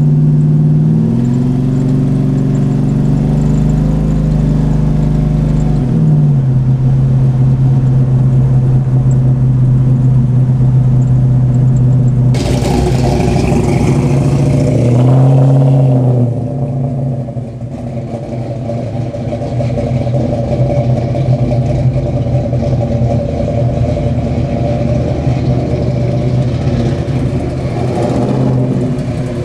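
Chevrolet 502 big-block V8, with an aftermarket cam and intake, running under way. Its pitch rises and falls back twice. A rushing noise cuts in about halfway through.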